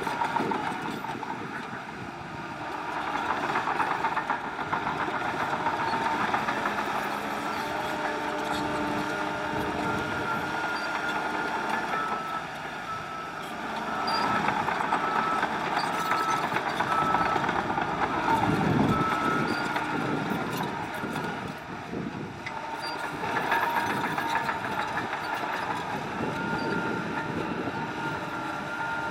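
Diesel engines of a bulldozer and dump trucks running under load, with a reversing alarm beeping at a steady pace.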